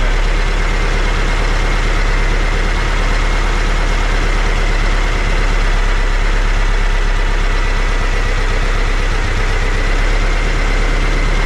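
VW bus engine fed by dual Weber 48 IDA carburettors idling steadily while the carbs are being synchronised.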